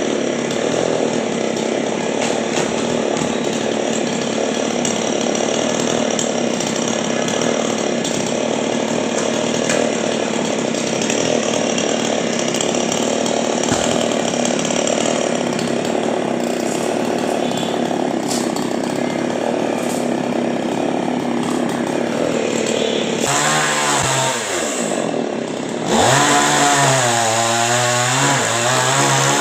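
Chainsaw cutting under load through a coconut palm trunk. About 23 seconds in the engine note clearly falls in pitch and drops back. A few seconds later it revs up again, louder, its pitch rising and wavering.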